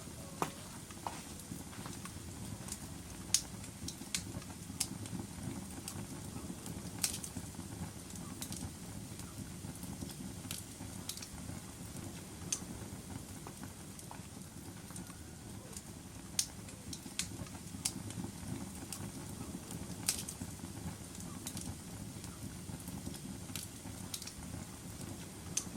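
Wood fire burning in a fireplace: a steady low rush of flames with sharp crackles and pops at irregular intervals, roughly every one to three seconds.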